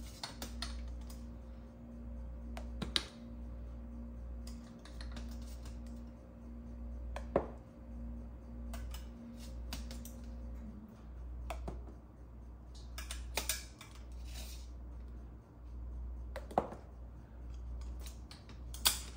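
Scattered light clicks and sharp taps, irregular and a few at a time, over a steady low hum; a faint steady tone in the hum stops about halfway through.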